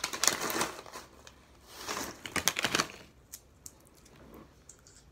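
Plastic snack bag of sunflower seeds crinkling as it is handled and seeds are shaken out, in two bursts about a second apart, followed by a few small clicks.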